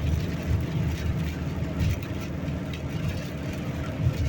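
Steady low rumble inside a moving car's cabin: road and engine noise with wind buffeting the car in a storm.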